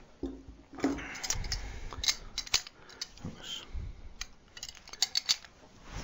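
Irregular sharp metal clicks and light clatter as water-pump pliers are picked up, their jaws opened and set onto a brass shower-valve temperature cartridge, with a few soft knocks against the bench.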